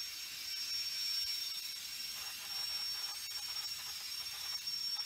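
Freight cars (tank cars and gondolas) rolling past on steel wheels: a steady hiss with a thin, constant high whine and a few faint clicks.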